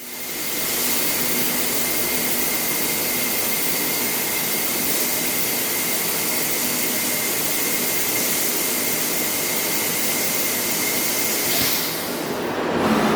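Lathe turning A6061 aluminium under semi-dry (minimum-quantity mist) lubrication: a steady machining noise with a thin high tone. Near the end it dips briefly and then turns rougher.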